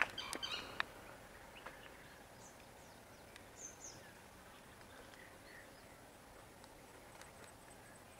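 Quiet outdoor ambience: a steady faint hiss with a few short, high bird chirps scattered through it, and a cluster of sharp clicks and taps in the first second.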